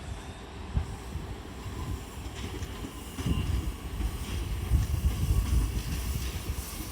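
DB class 425 electric multiple unit pulling out, its wheels rumbling and clattering on the track, growing louder about two and a half seconds in.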